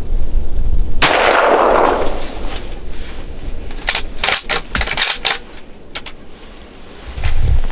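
A single hunting rifle shot about a second in, its echo dying away over about a second, followed by several sharp clicks and knocks.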